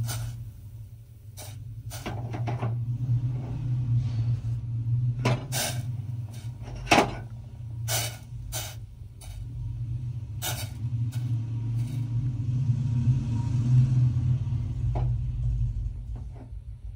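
Pan of tea with jaggery boiling on a gas stove: a steady low rumble that swells and eases, with a few sharp clicks, the loudest about seven seconds in.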